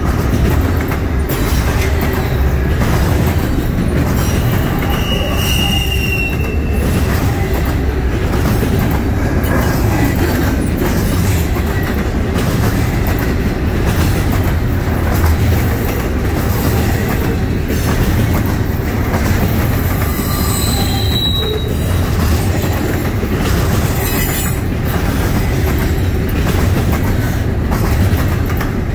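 Double-stack intermodal train of container well cars rolling past: a steady heavy rumble of steel wheels on rail with repeated clicks over the joints, and brief high-pitched wheel squeals about five seconds in and again about twenty seconds in.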